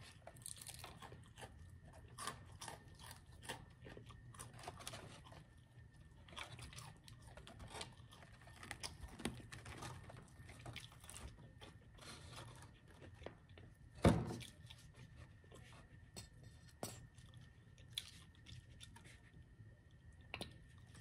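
Close-up chewing and crunching of fried food, many small crisp bites and chews, with one sharper knock about fourteen seconds in.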